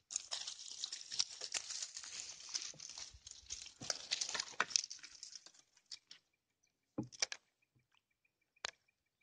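Rustling and crackling of dry leaves, seed pods and grass brushing close against the phone, lasting about five and a half seconds. After that come a few separate clicks and knocks.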